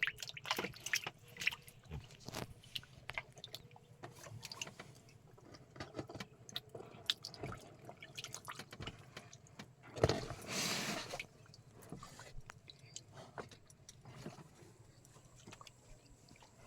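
Scattered small drips, splashes and clicks of a wet fishing line and hooks being handled at the water, with a louder burst of splashing lasting about a second, ten seconds in.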